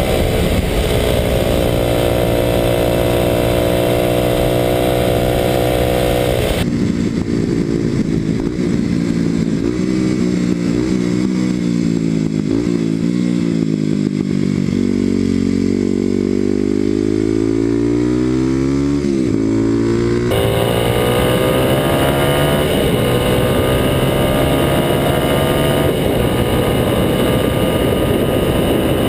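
Kawasaki KLX250SF's single-cylinder four-stroke engine running through a Muzzy exhaust under way. Its pitch holds fairly steady at first, then sinks for several seconds and climbs again. Through the middle stretch it sounds duller, with less treble.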